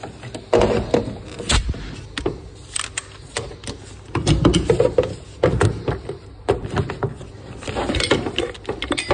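Irregular knocks, clanks and scrapes of a go-kart tyre and rim being handled and clamped on a manual tyre changer, with metal tools and clamp arms clattering and rubber rubbing on metal.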